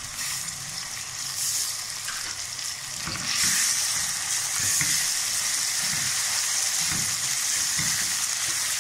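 Onions and tomato sizzling in hot oil in a pressure-cooker pot. The sizzle grows louder about three seconds in, and from then on a spatula scrapes and stirs through the pan in repeated strokes.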